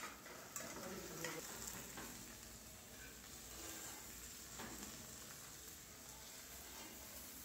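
Faint sizzle of red sauce cooking in an aluminium saucepan, with a spoon scraping and stirring it. A few light clicks of metal utensils are scattered through.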